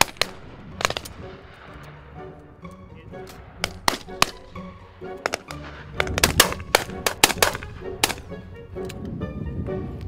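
Shotguns firing from a line of shooting butts at clay targets, in irregular single shots and quick clusters of several guns firing close together, with background music underneath.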